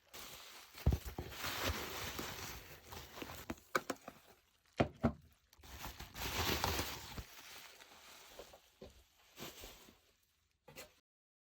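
Slime being played with by hand: sticky squishing and crackling in uneven bursts, with small sharp pops and clicks.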